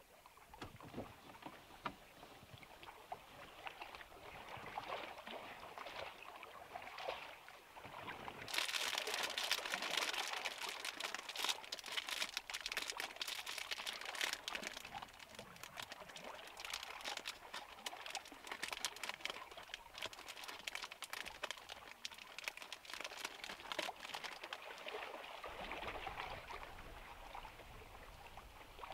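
A thin clear plastic bag crinkling as it is handled and opened. The crackling starts suddenly after a quieter opening and goes on for most of the rest.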